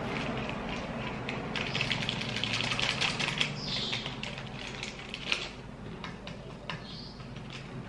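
Quick, dense crackling clicks of crunchy chips being bitten and chewed, mixed with the crinkle of a plastic sachet being shaken out, with a few louder crackles scattered through.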